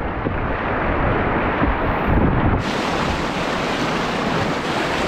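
Rushing whitewater of a river rapid churning close around a kayak, with wind noise on the microphone. The hiss turns brighter about two and a half seconds in.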